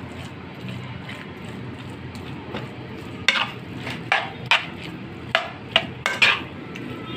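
A steel spoon stirring a chicken, onion and pepper filling in a frying pan, at first a soft steady stirring, then the spoon knocking against the pan about six times in the second half.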